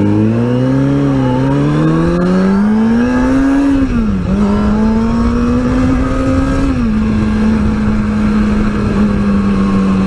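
Kawasaki ZX-6R inline-four sport bike engine accelerating away through the gears, its pitch climbing, with upshifts about four and seven seconds in, then holding a steady note at cruising speed.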